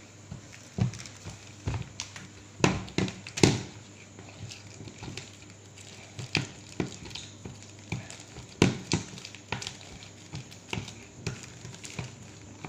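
A spoon stirring and mashing a thick, sticky bait paste of egg yolk, honey, horse fat and condensed milk in a bowl: irregular taps and scrapes, with a few louder knocks about three seconds in and again past the middle.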